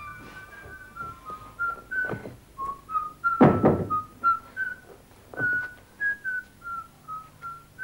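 A man whistling a tune, one clear note after another. A loud thud comes about three and a half seconds in, with lighter knocks around two and five seconds in.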